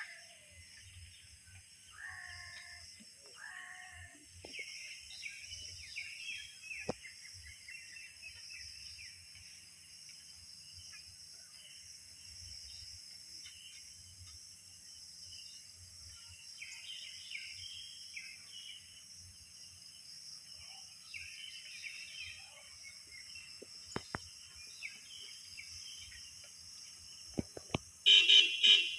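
Steady chorus of insects with birds chirping here and there; just before the end a car horn sounds in several short, loud honks.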